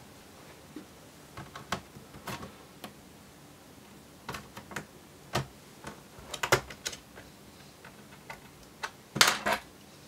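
Plastic snap-clips of a laptop's base panel clicking and popping as the panel is worked loose along its edges by hand and with a plastic pry tool. Scattered sharp clicks come at irregular intervals, with the loudest cluster about nine seconds in.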